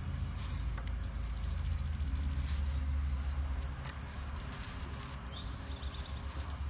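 Rope rustling and rubbing against a bamboo pole as it is wrapped and tied into a clove hitch, with a few light clicks. A steady low rumble underlies it, and a bird chirps briefly about five seconds in.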